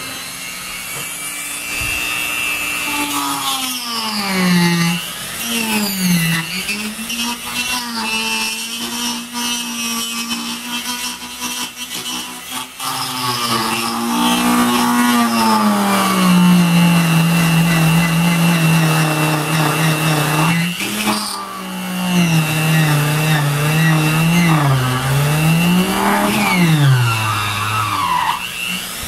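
Dremel rotary tool whining as its bit cuts into the plastic wall of a Pelican case, the pitch dipping and rising repeatedly as the bit bears in and eases off. It briefly lets up about two-thirds of the way through, then runs on.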